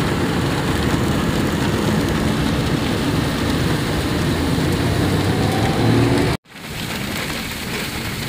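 Heavy rain falling on a moving car, heard from inside the cabin, over the car's engine and road noise. The sound cuts out suddenly about six seconds in and comes back a little quieter.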